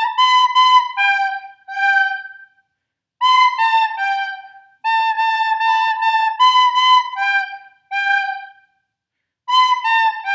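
Recorder playing a simple tongued melody on the notes A, B and G: a run of repeated As, then Bs, then Gs, a short rest, and a closing B-A-G. The phrase goes round again, with brief pauses between the phrases.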